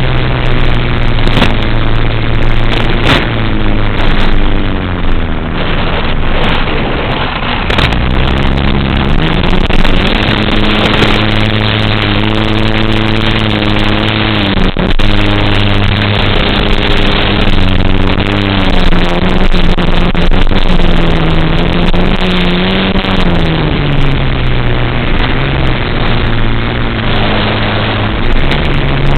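FPV racing quadcopter's motors and propellers running loud and steady, their pitch rising and falling as the throttle changes, under heavy rushing air noise.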